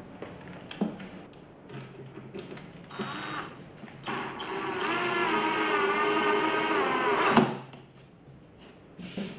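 Cordless drill driving a countersunk screw into MDF. A few light clicks and taps come first, then a brief spurt of the motor about three seconds in. The motor then runs for about three and a half seconds, its whine wavering slightly as the screw bites, and stops suddenly with a knock as the head seats flush in the countersink.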